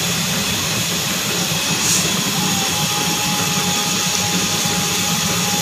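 Gas stove burner running with a steady roar and a low hum under it, heating an empty aluminium pot; a faint thin tone joins about halfway.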